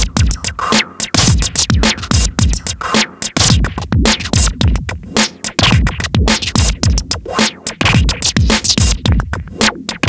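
Electronic drum-machine beat from a Teenage Engineering OP-1, played through a Waldorf 2-Pole analog filter and an Artec analog delay while the filter's knobs are turned: fast, dense pattern of low kicks that drop in pitch, with sharp clicks and hi-hat hits over them.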